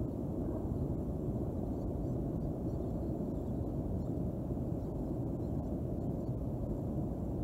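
A steady low rumble of outdoor background noise, with no distinct bird calls.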